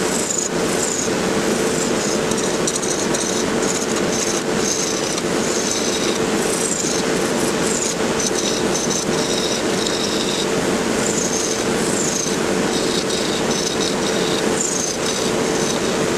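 Wood lathe running with a bowl gouge cutting a small spinning pecan blank: a steady motor hum under a continuous cutting hiss, with short high squeaks from the tool coming and going.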